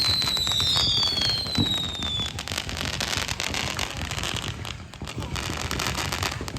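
Fireworks going off: several whistles falling in pitch over the first two seconds, over dense crackling that thins out near the end.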